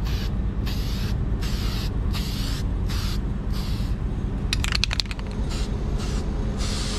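Aerosol spray-paint can hissing in a string of short bursts. Past the middle the bursts pause for a quick rattle of the can's mixing ball as it is shaken.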